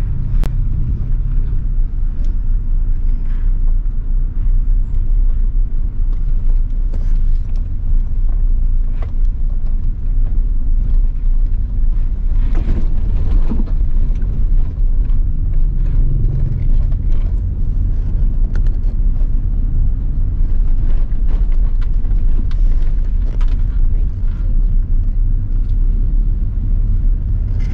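Car driving on a road, heard from inside the cabin: a steady low rumble of engine and tyre noise.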